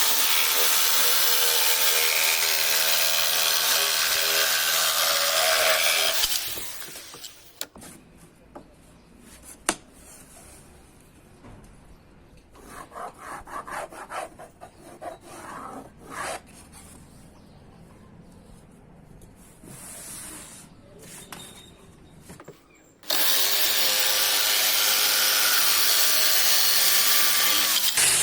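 An electric power tool working wood: it runs steadily for about six seconds and winds down, then comes quiet handling with knocks and rubbing of wood, and the motor spins up and runs again about 23 seconds in.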